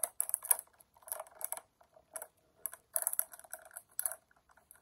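Foil blind-box bag crinkling and crackling in the hands, in irregular bursts of varying length.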